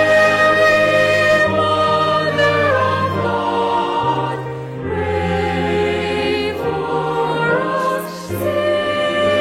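A choir singing held, slow-moving chords in a sacred style, with the chord changing every second or two.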